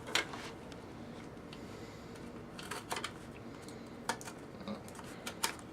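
A sealed hockey trading-card box being opened by hand: faint rustling with scattered sharp clicks and crackles of packaging, as the box or its wrapping resists opening.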